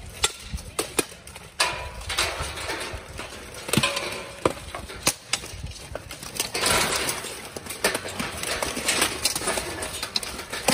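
Steel weapons striking plate armor and a shield during armored combat, with armor clanking as the fighters close in: an irregular string of sharp metallic clanks and knocks.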